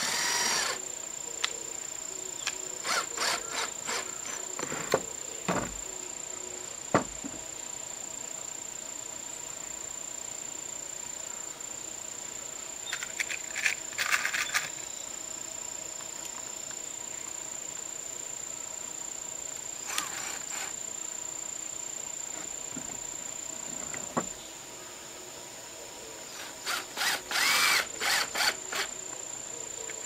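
A power drill run in short stuttering bursts, twice, with scattered sharp knocks and taps of work in between. A steady high insect drone runs underneath.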